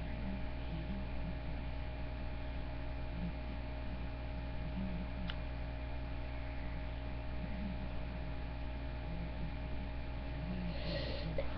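Steady electrical mains hum and hiss picked up by a webcam microphone, with one faint click about five seconds in and a short hiss near the end.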